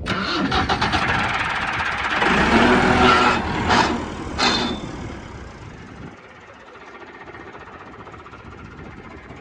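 Massey Ferguson 385 tractor's diesel engine running with the thresher working. It is loud through the first half, with two short bursts a little under a second apart about four seconds in, then drops to a lower, steady level about six seconds in.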